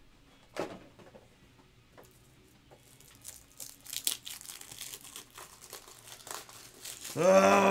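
Light crinkling and rustling of trading-card packaging, with a few soft clicks, as cards are handled. Near the end, a man's voice starts a long, drawn-out "oh, man".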